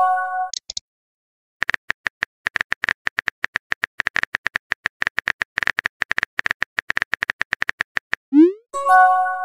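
Simulated phone-keyboard typing clicks, quick and irregular, for about six seconds as a message is typed out. Near the end comes a short rising swoop for the message being sent, then a chime of several steady tones; a similar chime dies away just at the start.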